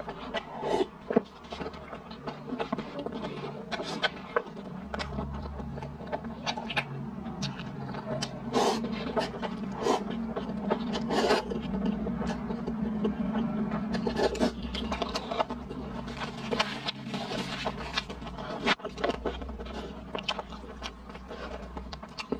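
Close-miked eating of instant cup noodles: wet slurps of noodles, sips of broth from the paper cup, and chewing. These come as many short, irregular slurps and smacks.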